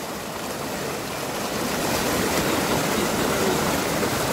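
Fast-flowing river water rushing and splashing over boulders close by: a steady, even rush, a little louder after about two seconds.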